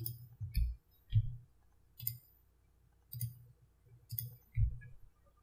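Computer mouse clicking, about eight short clicks at an uneven pace, as polygons are picked one at a time.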